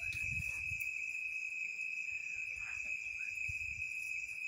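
Steady high-pitched insect trill, like a cricket, running unbroken, with faint rustles of hands tying plastic twine around shade cloth.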